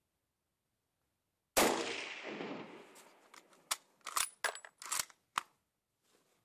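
A scoped bolt-action hunting rifle fires once about a second and a half in, the report trailing off in a long echo. Then the bolt is worked, a quick series of about six sharp metallic clacks.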